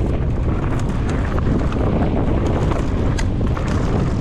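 Mountain bike riding fast down a dry, dusty dirt trail: wind buffeting the microphone over the rumble of the tyres, with scattered clicks and rattles from the bike and loose ground.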